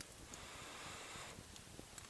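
A person's long breath out, a soft rushing about a second long, starting just after the beginning and stopping suddenly.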